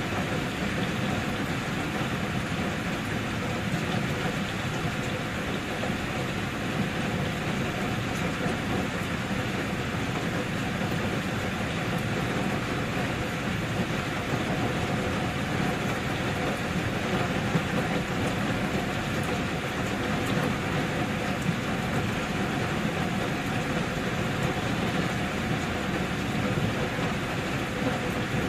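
Steady rain, an even hiss that holds at one level without breaks.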